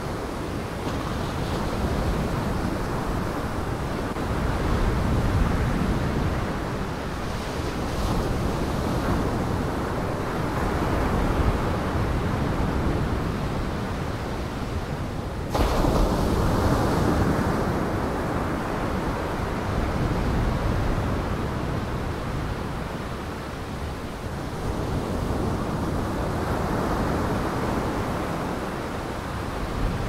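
Storm surf breaking and rushing against the shore, with wind; the sound swells and eases every few seconds and jumps suddenly louder about halfway through.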